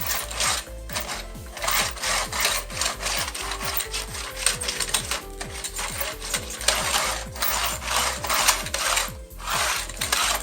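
Hand tool working thin sheet metal in steady back-and-forth strokes, about two a second, each a rasping scrape.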